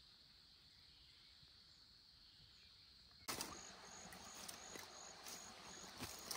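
A faint, steady, high insect drone. About three seconds in, leaves and twigs rustle and snap as someone pushes through dense undergrowth, while an insect chirps in short, evenly repeated pulses.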